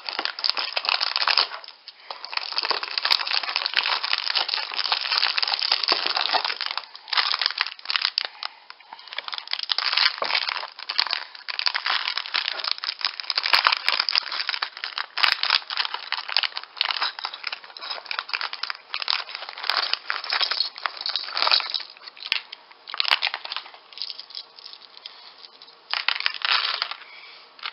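Crinkling and rustling of a small clear plastic parts bag being handled and torn open by hand, in bursts with short pauses.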